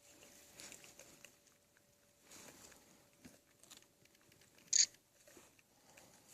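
Black bears crunching and chewing peanuts in soft, irregular crackles, with one sharper crack near the end.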